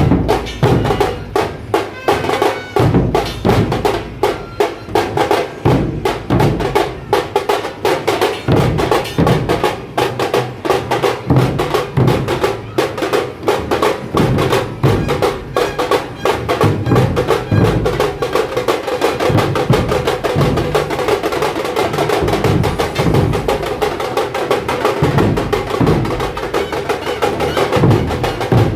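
Dhol-tasha drum ensemble playing a fast, driving rhythm: rapid, dense drum strokes with snare-like tasha rolls over the deep beat of the dhols.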